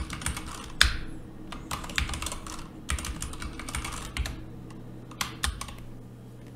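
Computer keyboard keys clicking as a password is typed: irregular keystrokes that thin out and stop about five and a half seconds in.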